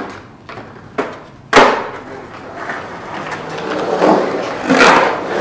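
Skateboard in an empty backyard pool: three sharp clacks of the board in the first second and a half, the last the loudest, then the wheels rolling on the pool's plaster in a rumble that swells as the skater carves through the bowl, loudest near the end.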